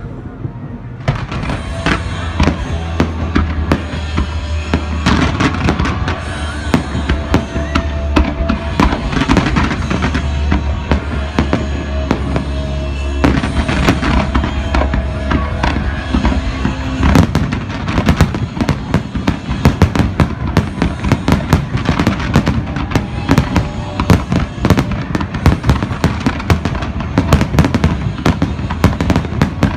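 Fireworks display: a dense, continuous run of bangs and crackles that gets louder and thicker from about 17 seconds in, with music playing underneath.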